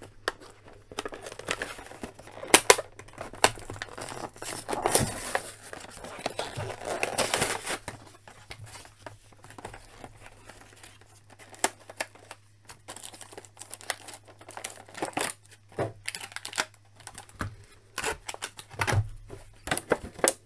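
Clear plastic blister packaging being torn and peeled off an action figure's cardboard backing card, crinkling and crackling as it is handled. The tearing and crinkling are densest about four to eight seconds in, then thin to scattered crackles and clicks.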